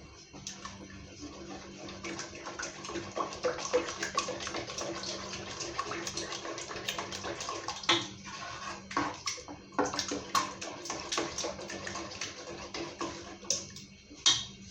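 Liquid soup in a pot being stirred and sloshing, with frequent sharp clicks and knocks of a spoon against the pot.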